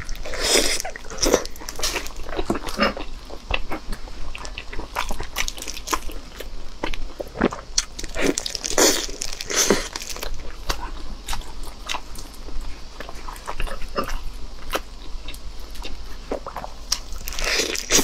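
Close-miked eating: biting into and chewing glazed pork belly, with many short mouth clicks and smacks and a few louder bites.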